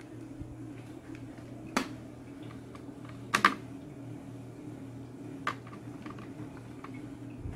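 Sharp plastic clicks and handling knocks from a hand working a cable connector on the back of an opened LCD TV: a click about two seconds in, a loud double click near the middle, and a smaller one later, over a steady low hum.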